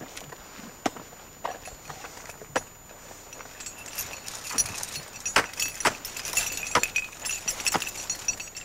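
Ice climber's tools and crampons striking snow-covered ice, single sharp knocks a second or more apart, with the metal climbing hardware on his harness jingling from about halfway through.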